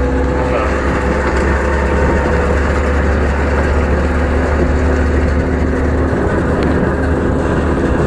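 Steady engine drone and rolling noise of a Russian off-road vehicle driving over a gravel riverbed, heard from its open back.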